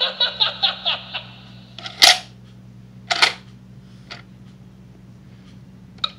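Gemmy animated haunted alarm clock toy: a short burst of laughter from its small speaker. Then two sharp mechanical clacks about a second apart over a low steady hum, and the quick rhythmic pulsing starts again near the end.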